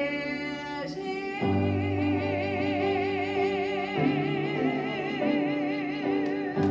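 A singer holding long notes with a wide vibrato over sustained instrumental chords. The accompaniment changes chord about a second and a half in and again around four seconds.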